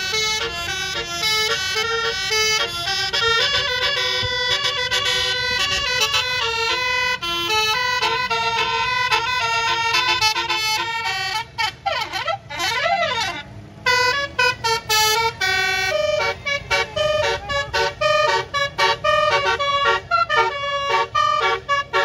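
Bus telolet Basuri horn, a multi-trumpet musical horn, playing a fast tune of loud tooting notes. Near the middle it gives two siren-like rising and falling sweeps, then switches to short choppy notes with brief gaps.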